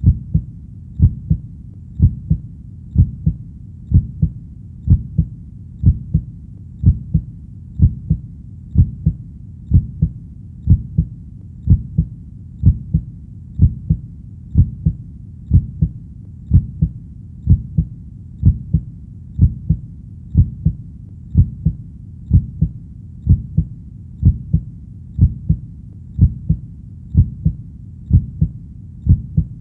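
Heartbeat sound, a steady double lub-dub about once a second. The beats are low-pitched, over a faint steady low hum.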